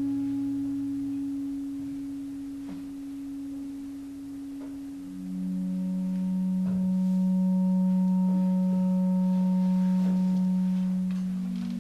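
Long held pure tones: one steady note sounds, a lower note comes in about five seconds in and carries on after the first stops, and a slightly higher note enters near the end. A few faint clicks lie under them.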